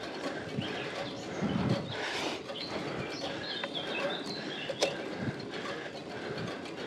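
Birds chirping in roadside woodland over the low, steady noise of a road bike climbing slowly up a steep, wet road.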